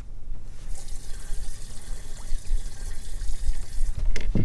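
Water rushing and spraying in a steady hiss that starts about a second in and stops near the end, over a low rumble.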